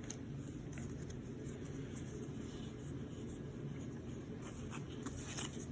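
Foil Pokémon card booster pack being opened and its cards handled: faint crinkling and rustling, busiest near the end, over a steady low hum.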